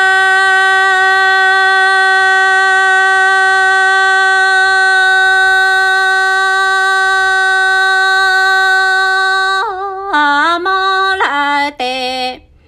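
A woman's singing voice holding one long, steady note for nearly ten seconds, then a few shorter notes that dip and step down in pitch before stopping near the end.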